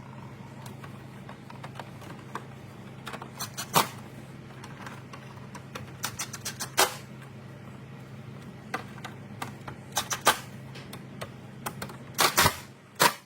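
Irregular clicks and knocks of hands working plastic grille parts and clips into place, a handful of sharp taps spread out and the loudest cluster near the end, over a steady low hum.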